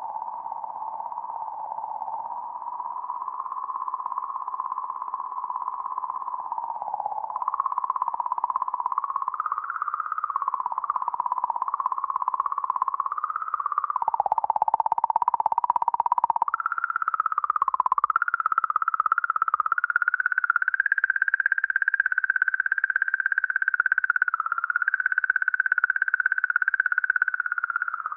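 The 'singing comet' sonification of comet 67P: magnetic-field oscillations recorded by the Rosetta mission and sped up into an audible warbling electronic tone. The tone flutters continuously. It steps up in pitch about a quarter of the way in, dips briefly around the middle, then climbs higher and holds there.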